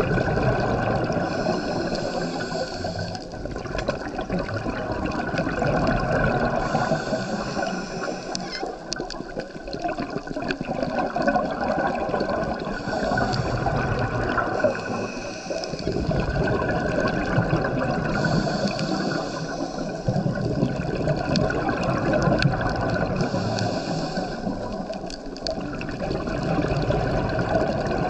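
Scuba diver breathing underwater through a regulator: a steady watery rush that swells every few seconds with the hiss of each breath and the gurgle of exhaled bubbles.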